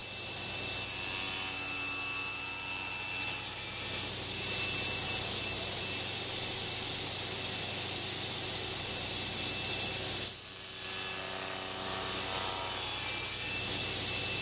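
Table saw running and cutting a small strip of wood along the fence to shape a molding profile: a steady motor drone under a bright, hissing cutting noise. The noise dips briefly about ten seconds in, then resumes.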